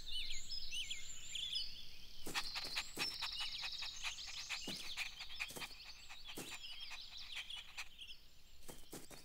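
Outdoor nature ambience of birds chirping and trilling, with a run of short sharp clicks through the middle. It thins out toward the end.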